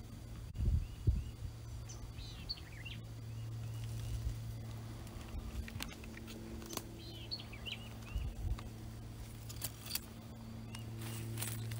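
Small birds chirping in several short clusters over a steady low hum that swells and fades. There are a few low thumps and scattered sharp cracks of footsteps and twigs in brush.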